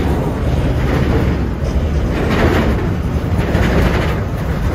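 Work-train flatcars loaded with continuous welded rail rolling past, a steady rumble of steel wheels on track with faint swells about once a second.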